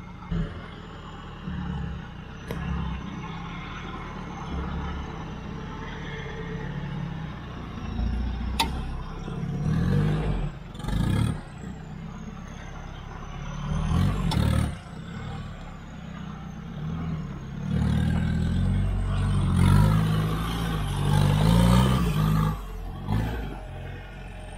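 Mitsubishi Pajero 4WD engine climbing a rocky ledge, swelling in several throttle bursts with clatter and crunching of the tyres on rock and gravel.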